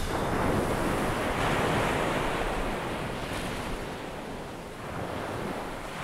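Ocean surf washing up the beach, with wind on the microphone: a steady rushing that dips a little near the end.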